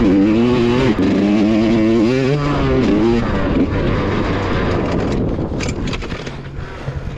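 Yamaha YZ125 two-stroke dirt bike engine with an FMF exhaust, revving up and down under riding over the first three seconds. Its note then turns rougher and drops away, settling to a low steady idle near the end.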